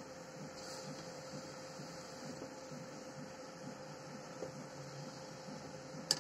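Faint steady electrical hum over low background noise, with a sharp click just before the end.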